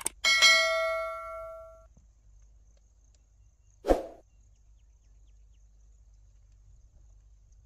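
Subscribe-button sound effect: a mouse click followed by a bell ding that rings out over about a second and a half. About four seconds in comes a single short, loud pop.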